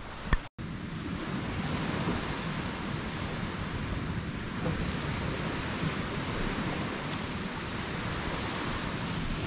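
Steady wash of sea surf and wind, an even hiss with no distinct events, after a brief click and a split-second dropout near the start.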